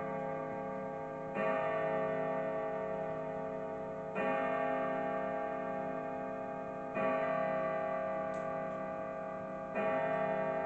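Urgos triple-chime grandfather clock striking the hour: four slow, even strikes about three seconds apart, each ringing on with many tones until the next, with the clock's tick underneath.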